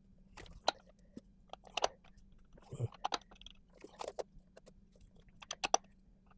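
Irregular clicks, taps and light scrapes of metal on metal as a distributor is wiggled and pushed down into the engine block, trying to seat its shaft on the oil pump drive.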